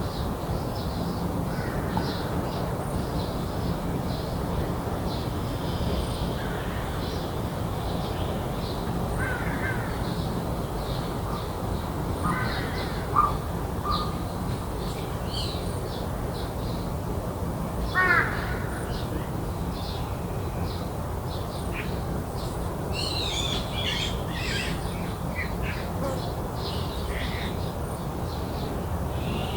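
Garden birdsong: crows cawing every few seconds among short, high chirps of smaller birds, over a steady low background hum.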